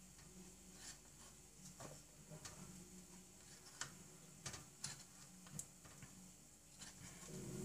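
Faint, irregular ticks and light scrapes of a wooden raclette spatula working against a nonstick cupcake pan, prying soft cookies loose from the cups.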